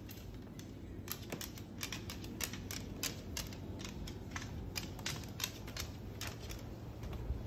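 Moluccan cockatoo's claws clicking on a hardwood floor as it walks: irregular sharp clicks, about two or three a second, starting about a second in.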